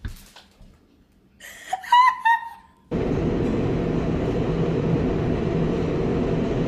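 A thump, then a few short high squeaky laugh-like sounds, then from about three seconds in a sudden, steady rumbling noise of a moving vehicle.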